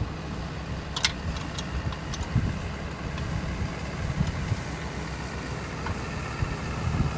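Ford Super Duty pickup truck running at low speed as it rolls slowly across a grass pasture, a steady low engine rumble. A short sharp click sounds about a second in.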